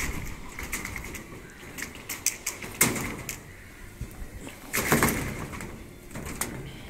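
Scattered clicks and knocks as PVC electrical conduit is laid on a steel rebar mat and a worker walks across the bars; the two loudest knocks come about three and five seconds in.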